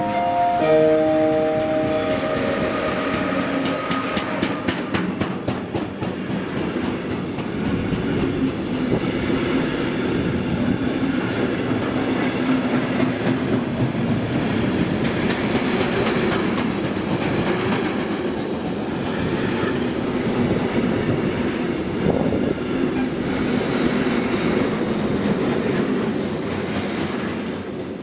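A train approaching and running past at speed. Its wheels clatter over rail joints, then the cars make a long, steady rumble as they pass.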